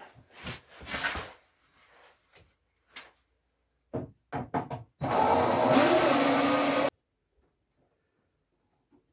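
A small electric power tool motor runs for about two seconds and stops abruptly, after a few sharp knocks and handling sounds on wood.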